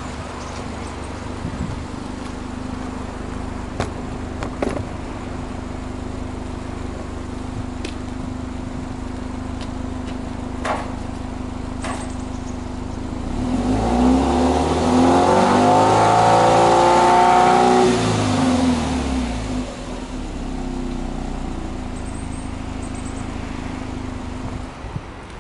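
Subaru Impreza WRX STI 2.0 hatchback's turbocharged flat-four boxer engine idling, heard at the exhaust tips. About halfway through, it is revved once in neutral: the pitch climbs, is held high for a few seconds, then drops back to a steady idle.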